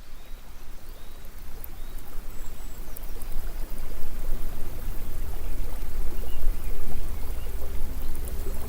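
Waterfall: rushing, pouring water with a deep low rumble, fading in and growing louder over the first four seconds, then steady.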